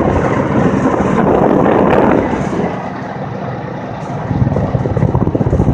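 Wind rushing over the microphone, mixed with road noise, while riding along at about 15 miles an hour. It eases about three seconds in, then picks up again, gusting and uneven.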